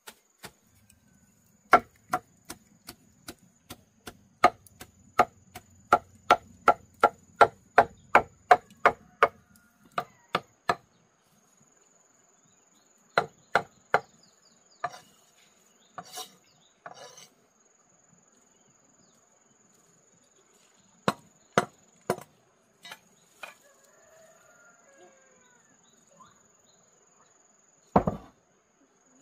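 Blade chopping on wood: a quick, even run of about twenty strokes, roughly two and a half a second, then scattered single strokes, with one heavier thud near the end. A steady high insect trill runs underneath.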